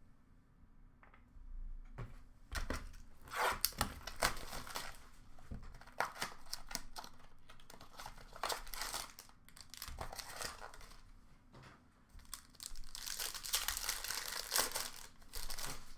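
Trading card pack wrappers being torn open and crinkled by hand, in irregular rustling bursts that start after a moment's quiet and pause briefly about three-quarters of the way through.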